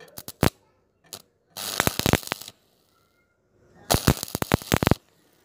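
Stick-welding arc crackling on a thin square steel tube where it meets a steel base plate, in short bursts: a few quick crackles at the start, then a burst of about a second, and another of about a second near the end.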